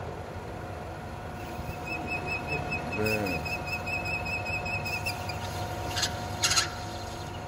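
Manual lathe running with its chuck spinning and a steady whine from the drive, while the cutting tool squeals on the steel pin in a high wavering tone for a few seconds from about a second and a half in, as a chamfer is cut. Two short sharp scrapes near the end.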